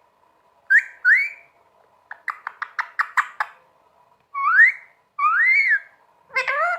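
Pet green parrot whistling and chattering: two short rising whistles, a quick run of about eight clicking chirps, then two longer rising whistles, with a harsher voice-like call starting near the end.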